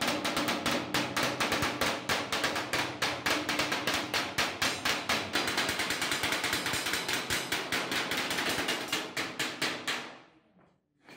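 Rapid hammering on metal, an even run of about six blows a second with a faint ringing under it, which stops near the end.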